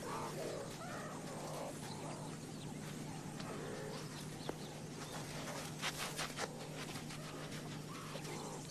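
Faint, irregular animal calls over a steady low hum, with a quick run of sharp clicks about six seconds in.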